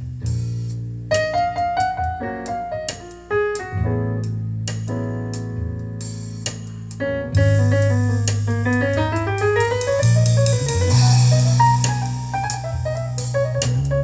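Sony SS-CM3 two-way bookshelf speakers, a 4.5-inch paper-cone woofer and a 1.5-inch paper-cone tweeter each, playing instrumental music led by piano over a steady bass line. About halfway in the music gets louder and drums with cymbals come in.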